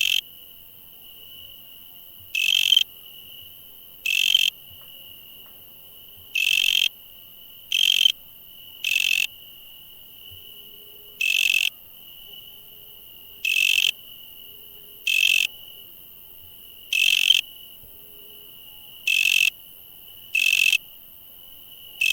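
Insects calling: a steady high-pitched trill runs beneath loud, short, raspy bursts, about a dozen of them, repeating every one and a half to two seconds.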